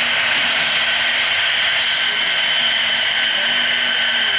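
HO-scale model coal train running on the layout: a steady whir with a couple of steady high tones.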